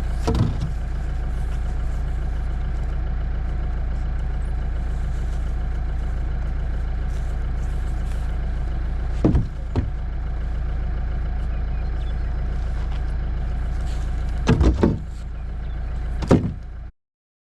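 Jeep engine idling steadily, with a few wooden knocks as old fence posts are dropped into the back: one right at the start, a pair about nine seconds in, and a cluster near the end. The sound stops abruptly shortly before the end.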